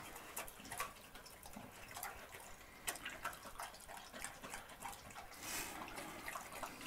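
A dog eating wet porridge with meat from a metal bowl: faint, irregular wet smacking and lapping, a quick run of small clicks.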